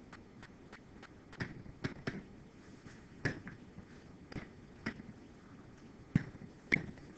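Scattered sharp clicks and taps from hand-writing on the computer: a few about a second and a half in, more around three to five seconds, and the loudest pair near the end. Faint ticking about three times a second runs underneath.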